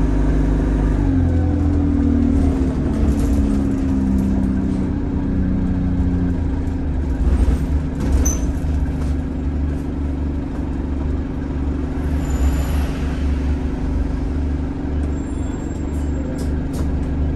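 Single-deck city bus heard from inside the passenger cabin while on the move: the engine and drivetrain drone, with the engine note shifting in pitch over the first six seconds as the bus changes speed, then running steadily. Occasional short rattles and clicks from the cabin.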